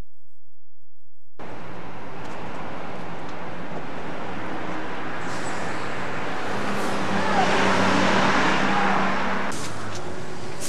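Street traffic noise, starting after about a second and a half of silence. It swells as a vehicle passes about seven to nine seconds in, then drops abruptly.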